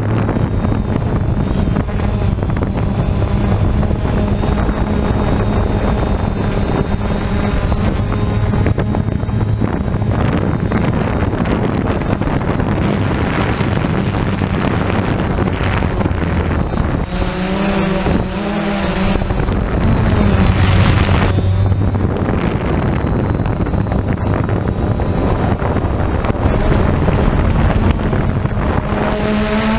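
DJI Phantom quadcopter's motors and propellers humming steadily, heard from the drone's own camera, with wind rushing over the microphone. The hum wavers in pitch a little past halfway.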